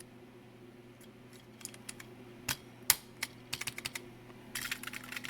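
Plastic keycaps on a Commodore SX-64 keyboard clicking as they are pushed onto their key stems and pressed: scattered sharp clicks that thicken into a quick run near the end, over a faint steady hum.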